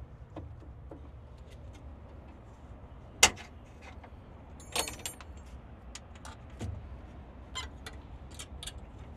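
Metal clicks and clinks of a 1975 Ford Maverick's trunk lock cylinder and its retaining clip being worked into the trunk lid by hand. One sharp click about three seconds in, a small cluster near five seconds, then scattered lighter clicks over a low steady rumble.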